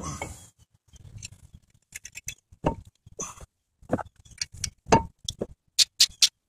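Irregular metal clinks and light clicks as a new coated brake rotor is fitted over the wheel studs of a Chevy Silverado front hub and a long Torx screwdriver works the rotor's T30 retaining screw. There is a quick run of brighter clinks near the end.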